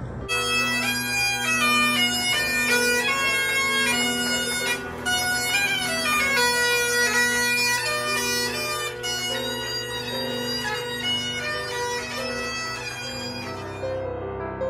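Bagpipe music: a melody played over steady, unbroken drones, starting abruptly just after the opening.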